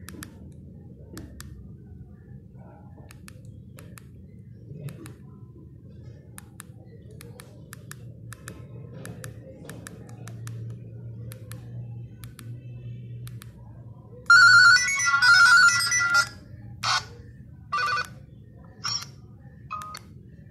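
Nokia 1280 mobile phone previewing ringtones through its small speaker as its ringing-tone list is scrolled: faint keypad clicks at first, then about 14 s in a loud ringtone melody plays for about two seconds, followed by four short snatches of other ringtones, each cut off as the next tone is selected.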